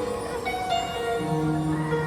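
Show soundtrack music with long held notes, several tones entering one after another; no firework bursts stand out.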